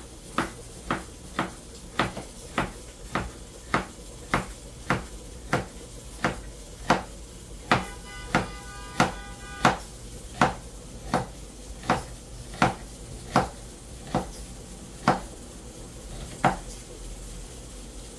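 Kitchen knife chopping vegetables on a cutting board: sharp, regular knocks of the blade hitting the board, about one and a half a second.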